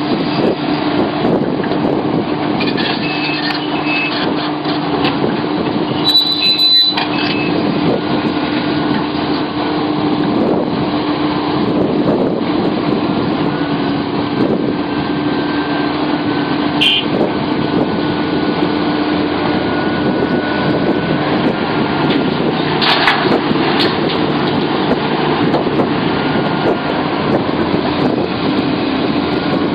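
Sumitomo SH700LHD-5 excavator's diesel engine running steadily, with faint whistling tones coming and going over it. The sound breaks off briefly about six seconds in, and there is a louder burst of noise a little past twenty seconds.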